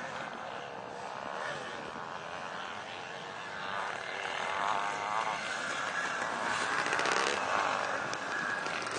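Several vintage motocross bikes' engines running around a dirt track, their pitch rising and falling as the riders open and close the throttle. The sound swells to its loudest about two-thirds of the way in as bikes come nearer.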